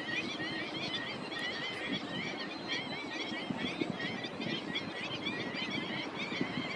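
A large flock of birds calling without pause in quick, wavy chirps, over the low steady rumble of a plowing tractor's engine.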